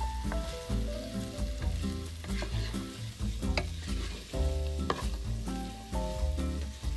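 Diced carrots and onions sizzling in hot oil in a frying pan, with scraping and light knocks as a wooden spatula stirs them. Background music with melodic notes and a heavy bass plays throughout.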